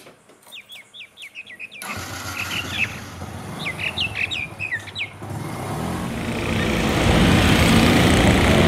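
Small birds chirping in quick downward-sweeping calls, then a motorcycle engine starts about two seconds in and runs as the bike pulls away, growing steadily louder toward the end.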